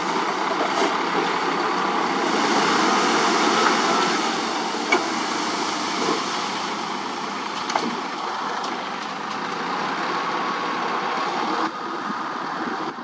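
Dump truck engine running as the raised tipper bed unloads a load of soil, with the dirt pouring out over the tailgate onto the pile. The sound drops suddenly near the end.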